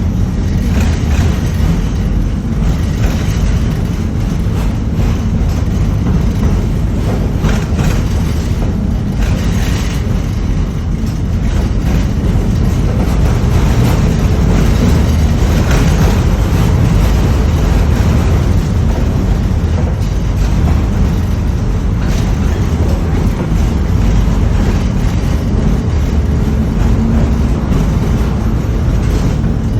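LVS-86K tram running along the rails, heard from on board: a steady low rumble of wheels and motors on the track with a few light clicks.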